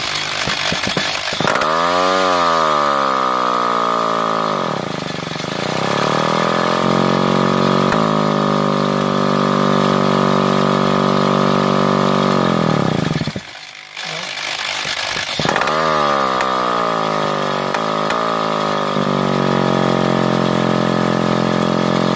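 Electric hammer drill spinning the crankshaft of a D5 two-stroke moped engine to crank it over. The drill's whine rises, sags about four seconds in, holds steady, then winds down around thirteen seconds; after a pause of about a second it spins up again and holds steady.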